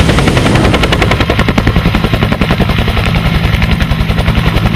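Helicopter sound effect, the kind a toy helicopter plays: a rapid rotor chop of about ten beats a second over a steady low hum.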